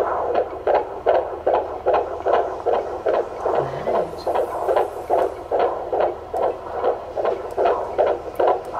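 Unborn baby's heartbeat picked up by a handheld fetal Doppler and played through its speaker: a fast, even pulse of about three beats a second, which the midwife calls perfect.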